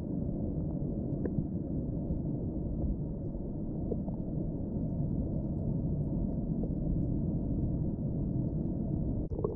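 Muffled underwater sound picked up by a submerged camera: a steady low rumble of water movement, with a couple of faint clicks.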